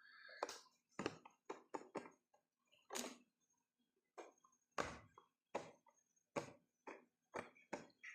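A run of about fifteen sharp taps and knocks at uneven spacing.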